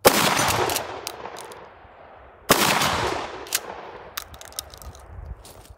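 Two shots from a Mossberg 590S 12-gauge pump shotgun firing 2¾-inch 00 buckshot, about two and a half seconds apart, each loud report trailing off over about a second. Short clacks of the pump action being racked follow each shot.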